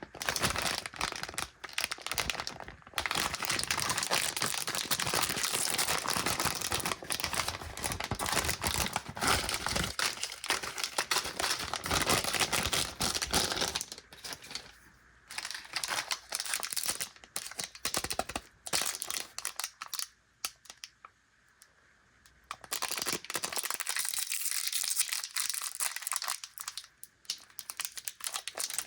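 Plastic snack packaging crinkling and tearing as it is opened and handled. Dense crackling for about the first half, then sparser, with a brief lull about two-thirds of the way through before the crinkling picks up again.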